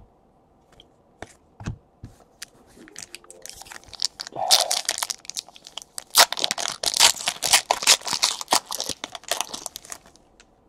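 Foil trading-card pack being torn open by hand, its wrapper crackling and crinkling in a dense run of sharp tears from about four seconds in until shortly before the end. A few faint clicks of cards being handled come first.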